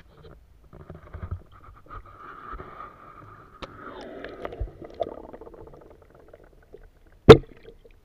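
Muffled underwater sloshing and gurgling from a camera dipped below a river's surface, with a few small clicks. One sharp, loud knock comes near the end.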